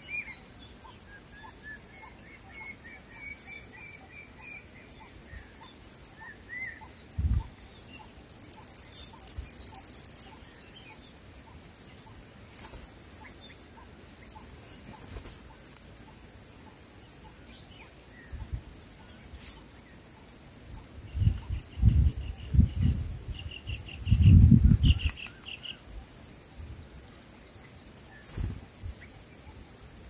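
Steady high-pitched insect chorus, with a louder burst of insect buzzing about nine seconds in. Over it, a run of bird chirps in the first few seconds and short, thin chirps later on, with a few low thumps near the end.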